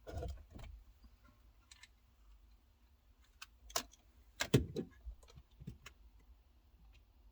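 Scattered faint clicks and knocks of a dash cam and its suction-cup mount and power plug being handled and fitted inside a car, loudest in a quick cluster about four and a half seconds in.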